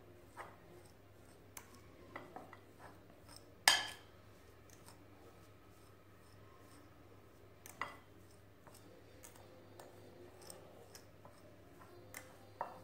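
Metal fork tines mashing boiled egg yolks in a ceramic bowl: scattered light scrapes and clinks of fork on china, with a sharper clink about four seconds in and another near eight seconds.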